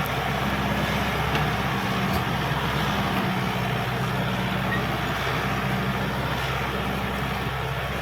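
Caterpillar D5K XL bulldozer running steadily, its diesel engine note sitting low under a broad, even mechanical noise.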